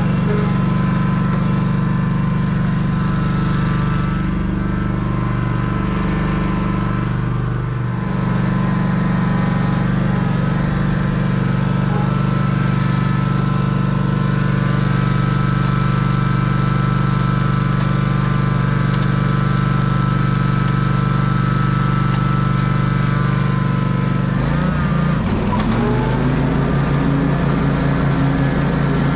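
Stand-on zero-turn lawn mower's engine running steadily. Its pitch sags briefly and recovers about eight seconds in, and again near the end.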